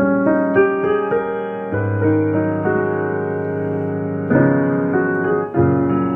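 Background music: a piano or electric-piano tune playing chords and melody notes.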